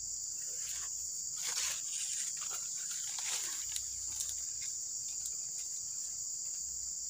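Insects chirring steadily in a high, unbroken drone, with a few faint rustles now and then.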